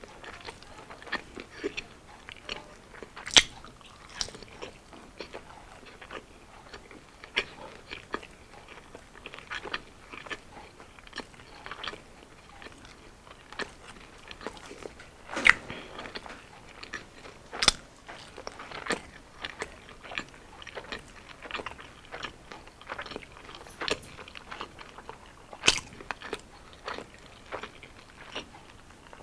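Close-miked eating sounds: irregular crunchy bites and chewing of crispy fried street food, with a few louder crunches scattered through.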